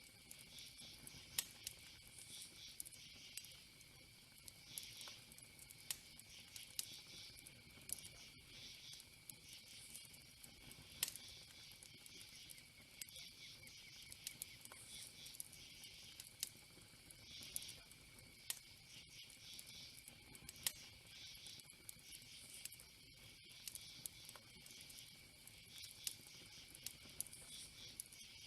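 Faint crackling fire with irregular sharp pops and snaps, over a steady high chirring of insects.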